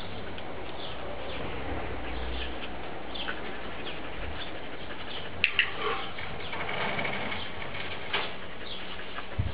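Garden ambience of small birds chirping in short high notes over a steady hiss, with a couple of sharp clicks a little past halfway.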